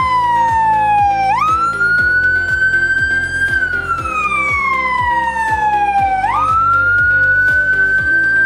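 An electronic siren wailing, with a steady beat of music under it. It goes through about two long cycles: each jumps up quickly in pitch, climbs slowly, then falls slowly.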